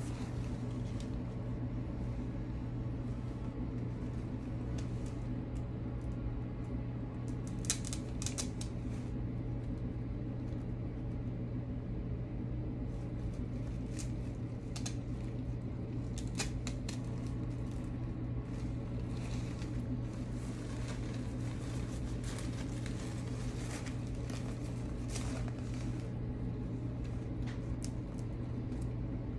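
Artificial flowers being handled and worked into a flower ball: scattered rustles and small clicks over a steady low hum.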